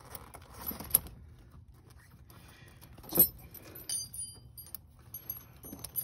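Steel tire chain links and metal tensioner clips clinking and jangling as the chain is unhooked by hand, with two sharp clanks about one and three seconds in, the second louder, then quicker light jingling.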